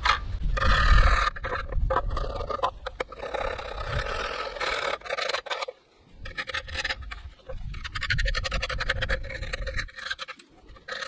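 A tool scraping rust off the rusted steel hinge of a Rolls-Royce Silver Spirit's fuel filler flap, in quick, irregular rasping strokes with a brief pause about six seconds in. The corrosion being scraped away is what had kept the flap from popping open.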